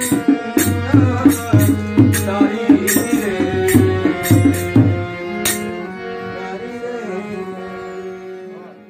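Harmonium and a rope-laced barrel drum playing the close of a song. Regular drum strokes run until about five seconds in, then the harmonium holds a final chord that slowly fades away.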